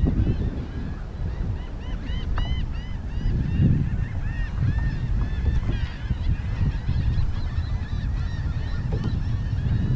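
A flock of birds calling: many short, arched calls overlapping, several a second, over a low rumble.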